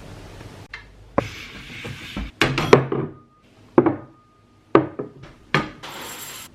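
A run of sharp knocks and clatters from objects being handled, about seven spread over several seconds, over a steady hiss, with a short hissing burst near the end.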